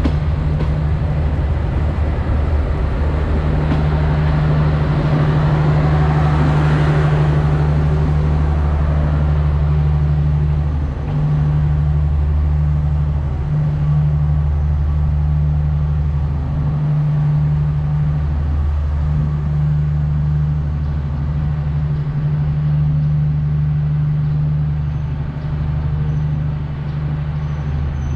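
Steady low engine drone, with the rumble of a passenger train's coaches rolling past on the rails building to a peak about six or seven seconds in and then fading as the train draws away.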